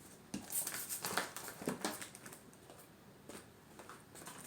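Tarot cards being handled on a table: a string of short, light slaps and rustles as cards are set down and the deck is gathered, busiest in the first two seconds with a few more taps near the end.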